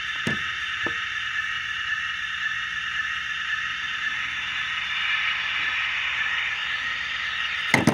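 Model locomotive sound decoder, heard through the model's small speaker, playing the A unit's auxiliary diesel (a 250 hp Cooper-Bessemer engine) running after start-up: a steady hiss over a fast low chugging. Faint clicks come early, and a sharp click comes near the end.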